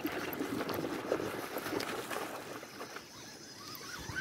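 Water splashing and churning as a hooked pike thrashes at the surface while being reeled in to the bank, dying down about three seconds in.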